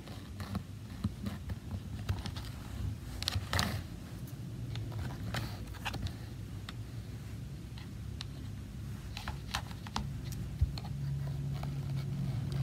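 Hand weaving on a small wooden frame loom: scattered light clicks, taps and rustles as a needle and yarn are worked through the warp threads, over a low steady hum.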